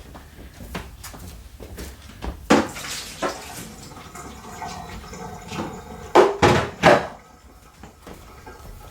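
Dirty water sloshing in a fridge freezer's plastic drip tray as the full tray is handled, with three louder sloshes about six to seven seconds in.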